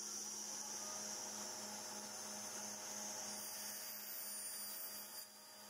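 Steady electrical hum with a faint hiss, with no tool running; the level drops slightly near the end.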